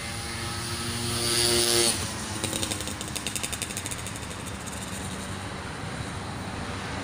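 A motor vehicle's engine passes at a steady pitch, growing louder for about two seconds, then cuts off. Rapid, even clicking follows for about two seconds, about ten clicks a second, as a fishing reel is wound in to land a catfish.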